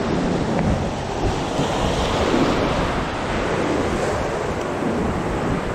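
Surf washing and breaking around rocks in a steady rush, with wind buffeting the microphone.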